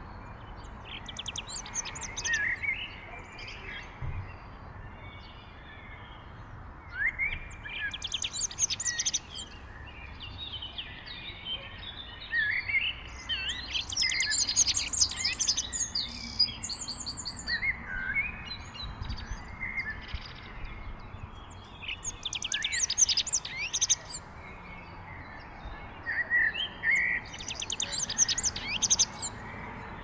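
A songbird sings about five high, trilling phrases of song, each a couple of seconds long and a few seconds apart, over a faint low background rumble.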